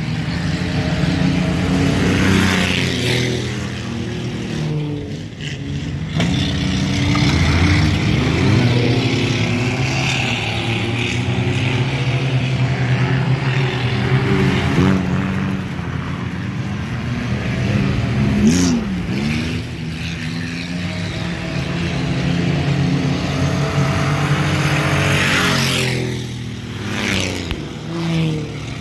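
Several four-cylinder street stock cars racing on a dirt oval. Their engines rev and pass close by one after another, so the pitch rises and falls as each car goes past.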